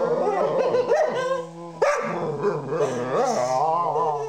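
Dog howling along to a tune in wavering yowls that slide up and down in pitch. Under it a low note is held steadily, dropping a step about two seconds in, as a person sings along.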